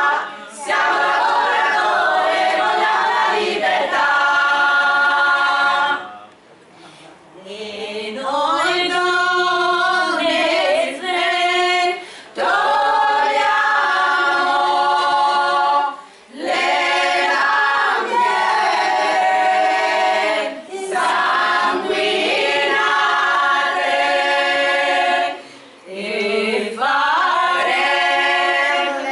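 A women's choir singing a cappella, in long phrases with short pauses between them.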